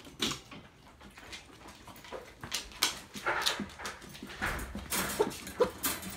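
Excited dogs whimpering and yipping, a run of short uneven cries that gets louder from about halfway through.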